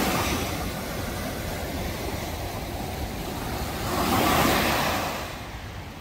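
Sea waves breaking and washing up onto a sandy beach, the surf swelling louder about four seconds in.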